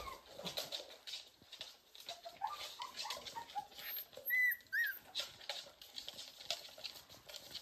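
Pembroke Welsh Corgi puppies whimpering softly, with their claws clicking and pattering on a hard floor. About four seconds in come two short, high squeals, the loudest sounds.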